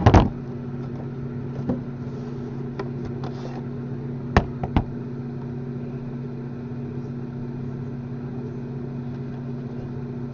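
Steady low mechanical hum, with a few sharp clicks and taps: one at the start, one a couple of seconds in, and two close together a little before the middle.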